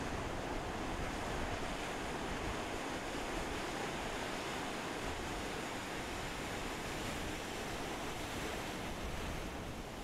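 Ocean surf washing onto a beach in a steady, continuous roar of breaking waves, with low wind rumble on the microphone.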